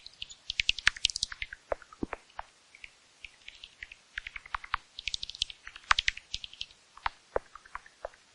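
Bat chittering: rapid high-pitched squeaks and clicks in two flurries, one about half a second in and a longer one from about four seconds in.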